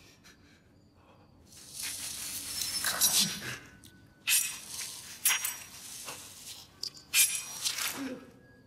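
A man's ragged, gasping breaths in several sharp bursts, the first long one building up over about two seconds, with shorter gasps around the middle and a last run near the end.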